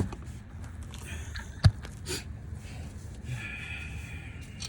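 Handling noise from a camera being put down: rustling and shuffling, with one sharp knock about a second and a half in.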